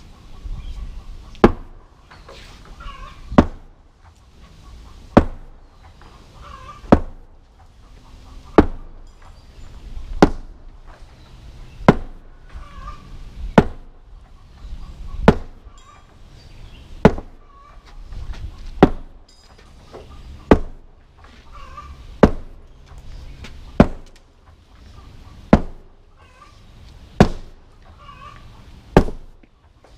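Sledgehammer repeatedly striking old concrete step slabs to crack them. There are seventeen sharp blows at an even pace, about one every second and three-quarters.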